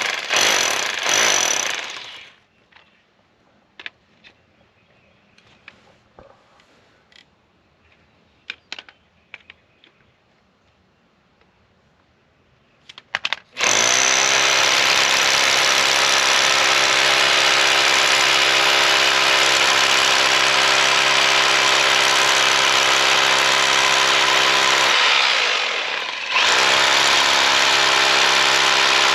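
Bauer hammer drill boring through a wall: a short burst of drilling at the start, a stretch of light clicks and knocks, then about 14 seconds in the drill starts and runs steadily under load, easing off for a moment near 25 seconds before running again. It goes through easily, described as 'like butter'.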